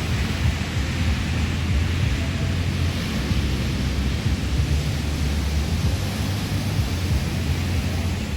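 Wind buffeting the microphone: a steady rush of noise over a heavy, fluctuating low rumble.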